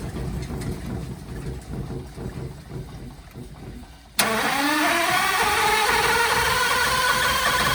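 A 5-inch wood chipper's engine runs down to a low, fading rumble, then about four seconds in starts up suddenly and revs, its pitch rising before it settles into steady loud running.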